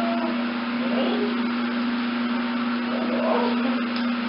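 Steady low hum over a constant hiss, unchanging throughout, like a running motor or appliance heard in a small tiled room.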